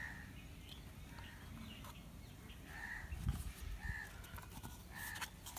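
A bird in the background calling in short, evenly pitched notes, several of them about a second apart in the second half. A soft low thump comes a little after three seconds in, from hands handling a paper cup.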